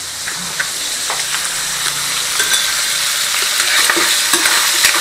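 Small pieces of pork sizzling in hot oil in a stainless steel pot, being browned before the vegetables go in; the sizzle grows louder, with light clicks of a metal spoon stirring against the pot.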